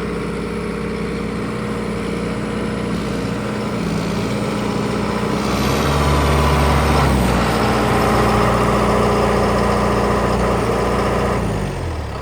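John Deere 6430's 4045 turbocharged four-cylinder diesel idling, then revved up about five and a half seconds in. It holds at the higher speed for several seconds and drops back toward idle near the end.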